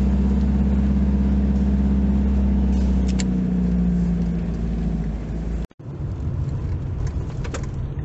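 Toyota Hiace van's engine heard from inside the cab, running steadily at raised revs as the van moves off. It cuts off suddenly about five and a half seconds in, and then comes the rougher engine and road noise of the van driving.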